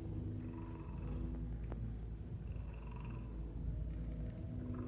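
Domestic cat purring close by as it is stroked: a steady low rumble.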